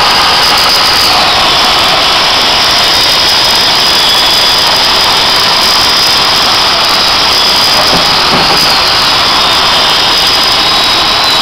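Older Canadian Tire Mastercraft 10-amp electric chainsaw cutting through a firewood log: a loud, steady, high motor whine whose pitch sags briefly a few times as the chain loads up in the wood.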